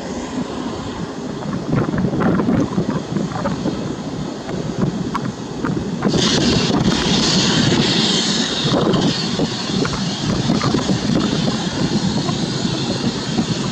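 Airbus A320-214's CFM56 turbofan engines running as the airliner taxis and turns to line up on the runway: a steady jet rumble that grows louder about six seconds in, when a higher hiss comes in on top.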